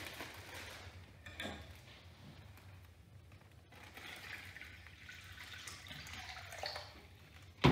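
Water poured from a pitcher into a plastic zip-top bag: a faint trickle and splash, ending in a sharp knock.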